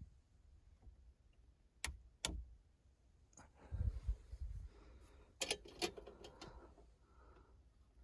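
Scattered sharp clicks and knocks of small objects being handled, with dull low bumps about halfway through and a quick run of clicks soon after.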